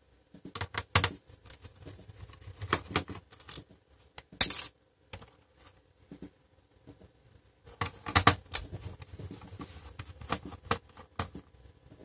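Screwdriver working screws out of a laptop's plastic base: scattered clicks, scrapes and small clatters in two bursts, with one sharp, loudest clack a little over four seconds in.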